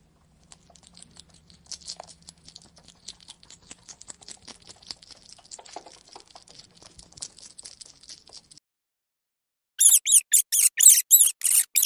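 Capybara grazing: a fast, uneven run of small crisp crunches as it crops and chews grass. About ten seconds in, a pika gives a rapid series of loud, high, squeaky calls.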